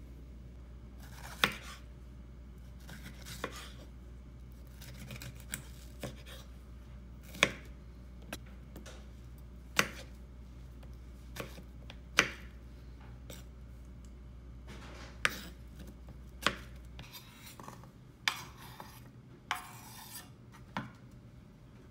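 Knife cutting on a chopping board: slow, irregular sharp knocks a second or two apart, with scraping sounds between the cuts. A low steady hum underneath stops about three quarters of the way through.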